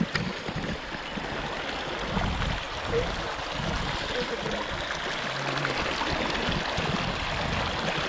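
Shallow rocky stream running over stones in small riffles, a steady rush of water.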